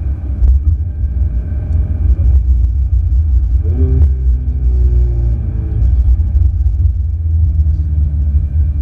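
Ferrari 488 GTB's twin-turbo V8 running under way, over a heavy low rumble; its engine note glides up and back down about four seconds in.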